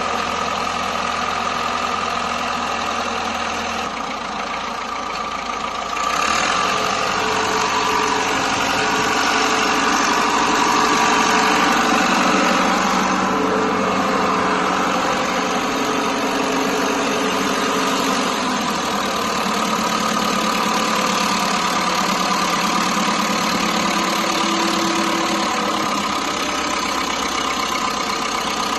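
Engine running steadily. About six seconds in it picks up and gets louder, then holds steady again.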